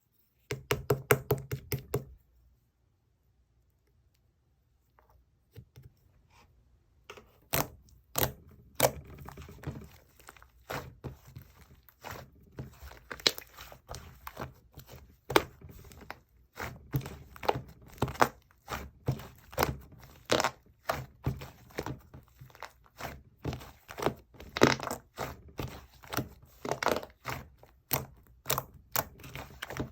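Slime, including fluffy cotton-candy slime, being mixed and pressed by hand. It makes sharp sticky clicks and pops, a few a second. A quick run of clicks at the start stops for about three seconds, then the clicking resumes irregularly.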